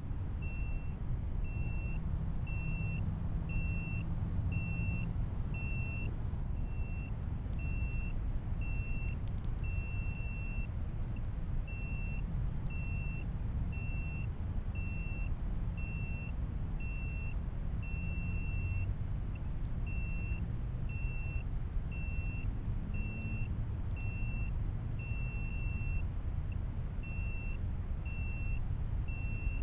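A crashed drone's alarm buzzer beeping steadily, short high beeps about three every two seconds, over a loud low rumble of wind on the onboard camera's microphone.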